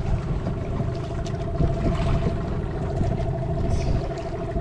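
Small wooden fishing boat's engine idling with a steady drone, over a low rumble of wind and water.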